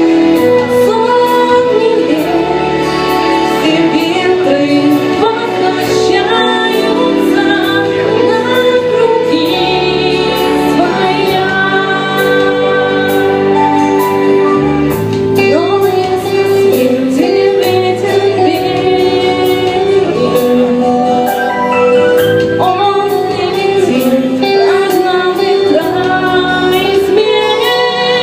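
A song with a female singing voice over instrumental backing with a steady beat.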